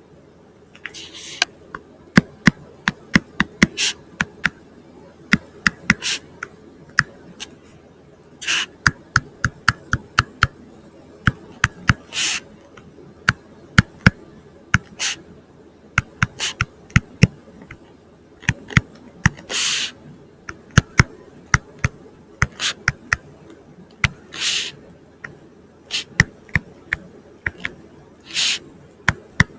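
Stylus tapping and sliding on a tablet screen during handwriting: an irregular run of sharp clicks, several a second, with a few short hissy scrapes among them.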